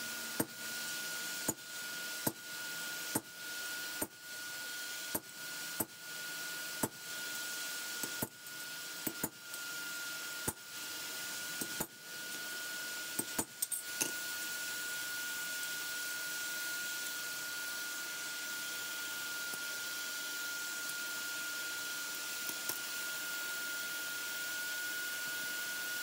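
Hammer striking a chisel held on a steel lawnmower blade over an anvil: about fifteen sharp metal blows, roughly one a second, stopping about 14 seconds in. A steady hiss with a thin high tone runs underneath throughout.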